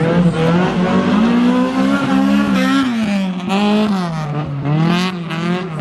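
Four-cylinder engine of a Honda Civic hatchback rally car revving hard. Its pitch rises and drops several times as the driver accelerates and lifts off through the tight turns of a roundabout.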